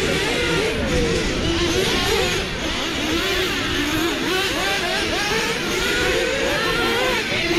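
Several 1/8-scale nitro RC buggies with .21-size two-stroke glow engines racing, their high-pitched engines revving up and easing off through the turns, the pitches weaving over one another.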